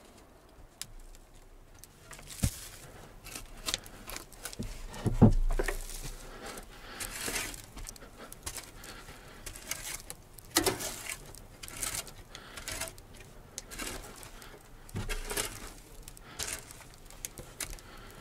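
Shovel digging into an earthen floor: irregular scrapes of the blade through soil, with dull knocks and a heavier thump about five seconds in.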